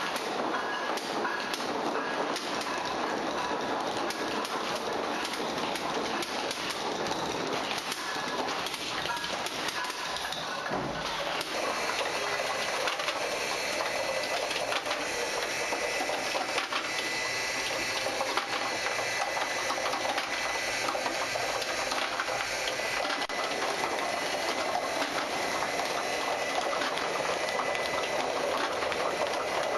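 A machine running steadily with a dense, rapid clatter of small clicks; about eleven seconds in the sound shifts and a thin steady high whine joins it.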